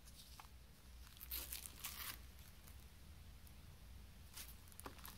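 Faint crinkling from a cellophane-wrapped CD jewel case being handled and turned over by hand, lasting about a second. A few light clicks follow near the end.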